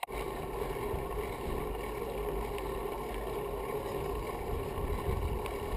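Steady wind rumble on the microphone of a moving bicycle-mounted camera, mixed with the bike's rolling noise on tarmac. It starts abruptly at the outset and holds steady.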